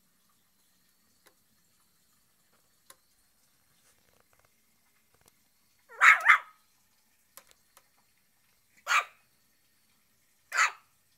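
Shih tzu puppy barking: a quick pair of barks about halfway through, then two single barks near the end.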